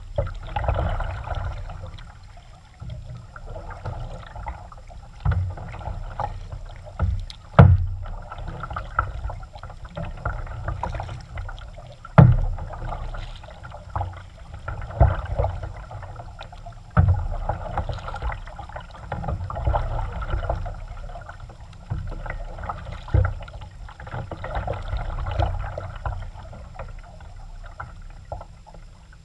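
Kayak paddling: the paddle blades dip and splash in the water in a steady rhythm of about one stroke every second or two, with water dripping and occasional sharp low thumps.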